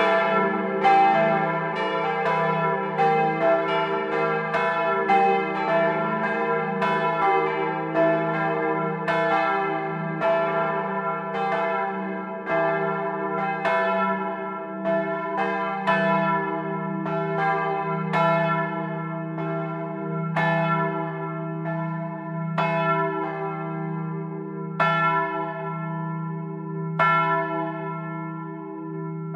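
Church bells (the 1951 Otto-cast peal, rung electrically) swinging and striking, heard close up from inside the tower, their strikes overlapping with long ringing tones. In the second half the strikes thin out to a loud one about every two seconds.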